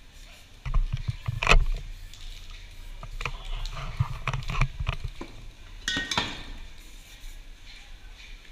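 Metal aerosol spray-paint cans clinking and knocking as they are handled, a run of irregular sharp taps and clinks with a louder cluster about a second in and another near six seconds.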